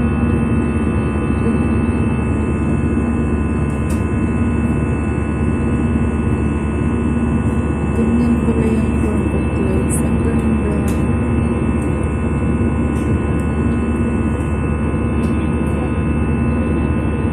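Steady jet airliner engine and airflow noise heard inside the passenger cabin in flight, just after takeoff, with a constant hum and no change in pitch.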